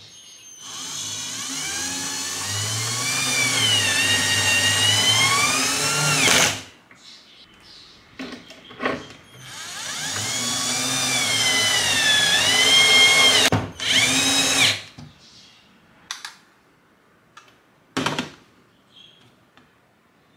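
Cordless drill driver driving screws into the wall to fix a metal pipe clamp over PVC conduit. The motor runs in two long stretches of several seconds each, its whine dipping in pitch and climbing again, then gives one short final burst. A couple of sharp clicks come near the end.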